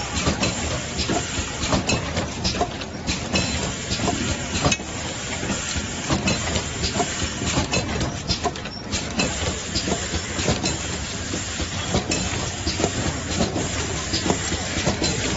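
Automatic glove cartoning machine running: a steady mechanical clatter with frequent sharp clicks as boxes are filled with gloves and their cartons closed on the conveyor.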